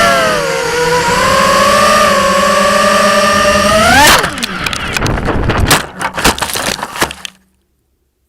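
FPV multirotor's electric motors and propellers whining steadily with small shifts in pitch, rising briefly about four seconds in and then cutting out. A run of sharp clicks and crackles follows, and the sound stops abruptly near the end.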